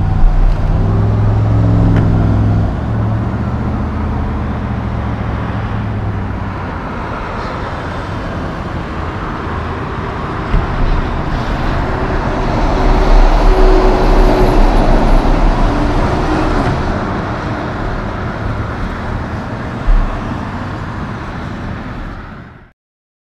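Heavy semi truck's diesel engine running low at first, then road and tyre noise swells as the truck and trailer pass, peaking about halfway through and easing off before the sound cuts off near the end.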